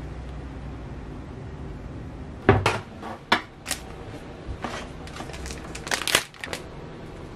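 Plastic bag crinkling as it is handled and tipped, a run of short crackles and rustles starting about two and a half seconds in, over a low steady room hum.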